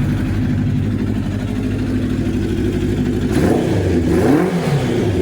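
Kawasaki GPZ900R's inline-four motorcycle engine idling steadily, then revved once about three seconds in, the pitch rising and falling back to idle near the end.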